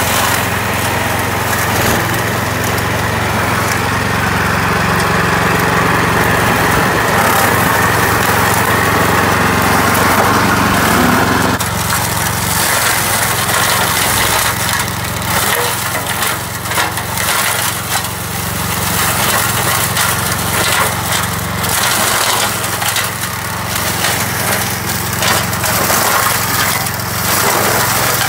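A Vezdekos TS 1000 walk-behind brush mower's small engine runs steadily under load while its cutter shreds brush and saplings. A dense rush of chopped material drops away about twelve seconds in, leaving irregular crackling and snapping of stems over the engine.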